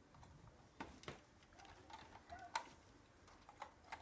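Faint, scattered clicks of plastic Lego pieces being handled and pressed together, a few sharp ticks spread over the seconds against near silence.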